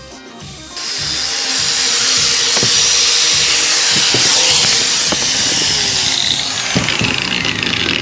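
Angle grinder with a wire cup brush starting up about a second in and running against the steel bicycle fork, stripping off old paint that was too hard to scrape off. Background music plays under it.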